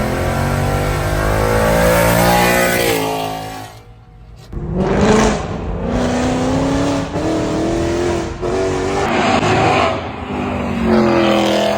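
Ford Mustang GT's 5.0 Coyote V8 through long-tube headers, H-pipe and factory mufflers, very loud, revving hard with its pitch climbing. It drops off sharply about four seconds in, then pulls up again several times with short breaks between.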